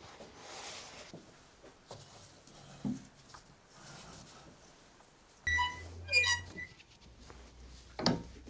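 Cast-iron screw press being wound down by its T-handle to squeeze excess water out of pastel paste wrapped in a cloth: a run of high squeaks about five and a half seconds in, then a sharp metallic clank near the end.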